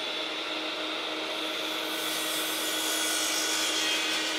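Electric mitre saw running at full speed with a steady whine, its blade cutting through a wooden siding board from about halfway in.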